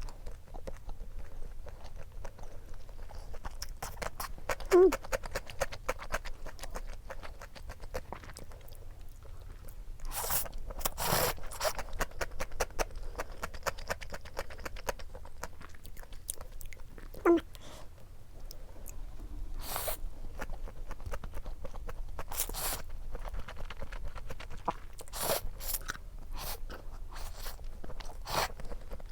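Close-miked eating: chewing with many small wet clicks and a few longer noisy swishes, over a meal of perilla-oil buckwheat noodles and dumplings. A couple of brief voiced sounds from the eater, near 5 s and 17 s.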